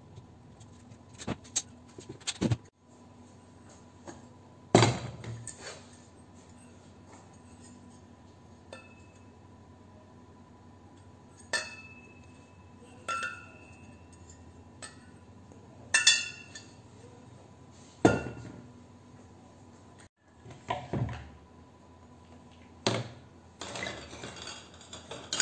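Aluminium light-fitting parts (finned heat sinks and metal reflector cones) clinking and knocking against each other and the workbench as they are handled and set down. There are about a dozen sharp knocks spread out, a few with a brief metallic ring; the loudest comes about five seconds in.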